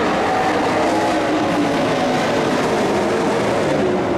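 Dirt-track race trucks' engines running hard around the oval, a steady loud drone whose engine notes rise and fall as the trucks pass.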